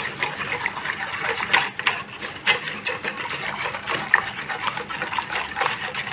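Wire whisk beating a thin mixture of cocoa, sugar, starch and milk in a small saucepan: a quick, even run of clicks and scrapes as the wires strike the pan.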